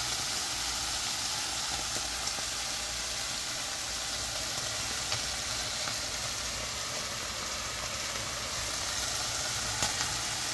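Paneer cubes sizzling steadily as they fry in oil in a sauté pan, over a low steady hum. Near the end a fork gives a light click against the pan as the cubes are turned.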